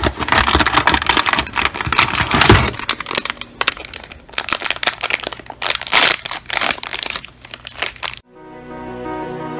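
Granola breakfast bar's plastic wrapper crinkling and crackling in the hands as a bar is pulled from its cardboard box and torn open. The crinkling stops sharply about eight seconds in, and soft background music with sustained notes follows.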